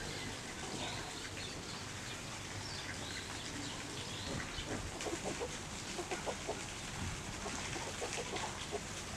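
Chickens clucking, short repeated clucks from about halfway through, over a steady background hiss with faint high chirps in the first half.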